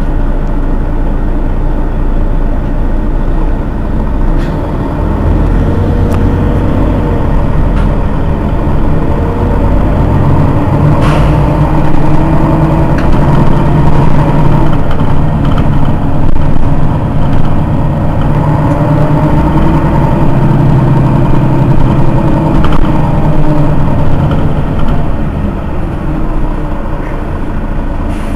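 Rear-mounted engine of a Mercedes-Benz Citaro city bus idling at a stop, heard from just behind the engine bay. It grows louder through the middle and eases off again near the end. There is a single sharp click about eleven seconds in.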